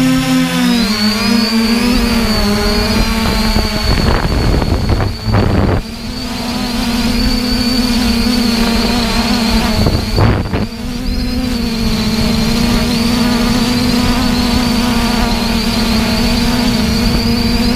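3DR Iris+ quadcopter's brushless motors and propellers buzzing steadily in flight, heard from the camera on board, with a thin high whine above the hum. The pitch wavers near the start as the motors change speed, and wind gusts hit the microphone a few times.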